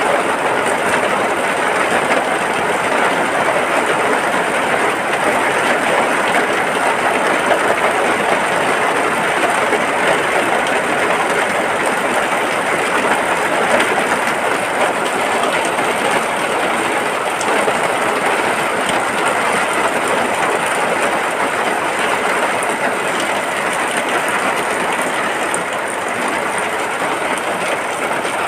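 Rain falling steadily, a dense even hiss of countless drops.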